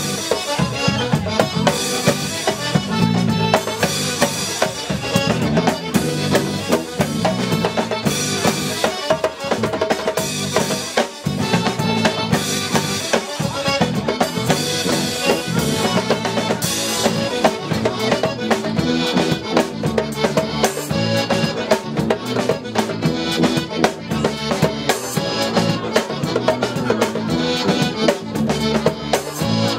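Live folk band playing an instrumental tune: melodeon carrying the melody over tuba, electric bass and a drum kit keeping a steady beat.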